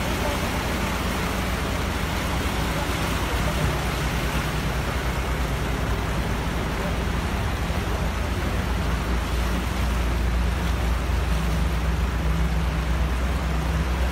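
Vehicle engine running steadily under a continuous rush and splash of floodwater as vehicles drive through the flooded road; the low engine hum grows a little stronger about ten seconds in.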